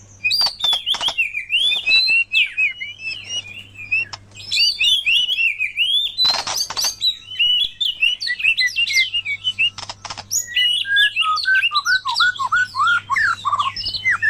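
White-rumped shama and oriental magpie-robin song: fast, varied runs of whistles, chirps and trills without a break. A loud burst comes a little before halfway, and lower, slurred whistles come in near the end.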